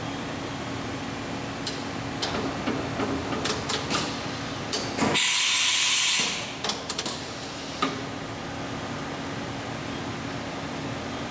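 Matsuura MC-600V vertical machining center running with a steady hum while its automatic tool changer works: a run of clicks and clunks, then an abrupt hiss of air lasting about a second, then a few more clicks.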